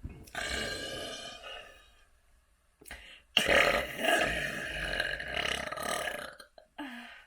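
A person burping: two long, drawn-out belches. The second starts suddenly about three seconds in and is the louder one.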